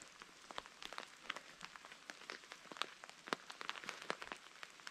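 Light rain pattering: scattered drops tapping irregularly, several a second, over a faint steady hiss.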